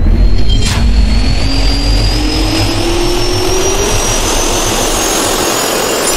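Jet-turbine spool-up sound effect: a whine rising steadily in pitch over a rushing noise and a deep rumble. There is a short sharp hit under a second in and another at the end.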